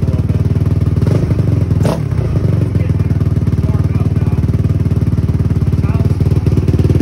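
Honda TRX450R quad's single-cylinder four-stroke engine, rebuilt with a 479 cc big bore kit and FCR carburettor, running at a steady idle, with one sharp clack about two seconds in.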